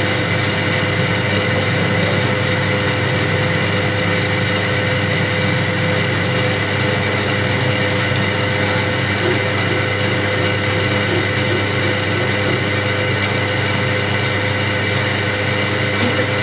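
Metal lathe running steadily, its motor giving a constant hum with a steady mid-pitched tone over a noisy whirr.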